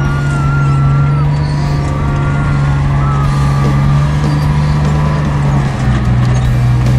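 Tank engine running with a steady low drone as the tank climbs onto and crushes a car, with thin wavering squeals above it. The drone drops in pitch a little near the end.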